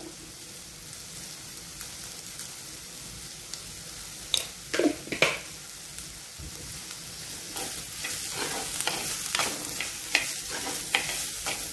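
Chopped onions sizzling in hot ghee in a pot, with a steel spoon scraping and knocking against the pot as they are stirred. A few strokes come about halfway through, and the stirring grows busier in the second half.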